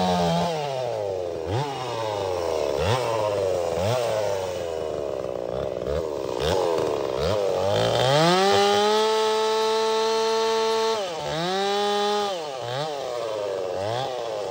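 Farmertec MS361 kit chainsaw, a two-stroke, running hard through cuts, its engine pitch repeatedly dipping and climbing with load and throttle. About two-thirds of the way through it screams at a high steady pitch for a couple of seconds, then drops sharply and goes back to dipping and climbing.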